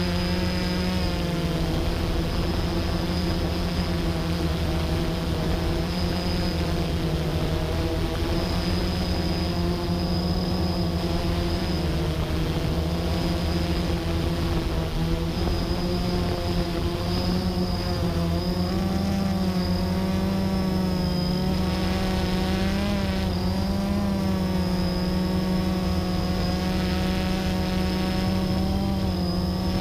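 Blade 350 QX3 quadcopter's four brushless motors and propellers buzzing in flight, heard close up from the camera mounted on its frame. The pitch wavers and shifts as the throttle changes, most noticeably in the second half.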